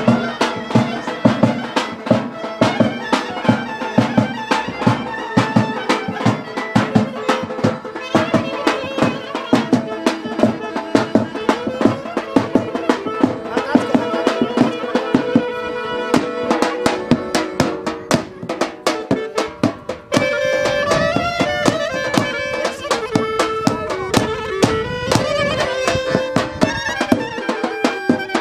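Traditional dance music with a fast, even drum beat under a wind-instrument melody; about twenty seconds in the sound dips briefly and a new, higher melody line begins.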